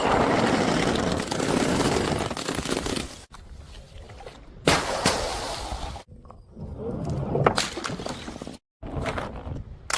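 A run of short edited clips of things being smashed and crushed: about three seconds of dense crunching at first, then separate sharp cracks of breaking, the loudest about halfway through and again near the end.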